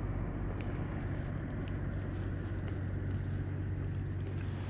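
A steady low engine hum with a few faint clicks over it.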